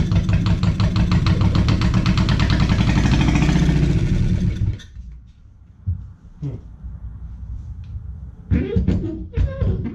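Two-cylinder Perkins diesel engine running with a steady, rapid firing beat, then dying suddenly a little under five seconds in; a few scattered knocks follow. The engine keeps quitting after starting, which the owner thinks may be a pump problem.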